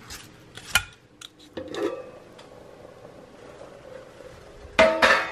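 A few sharp scraping strokes of a hand vegetable peeler on a potato, then a loud burst of rustling handling noise near the end as the camera is picked up.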